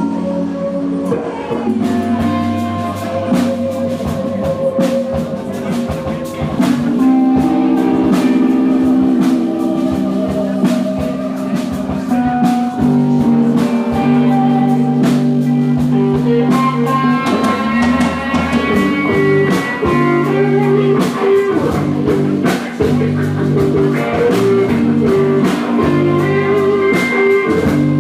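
Band music with guitar over a drum kit, in a bluesy rock style.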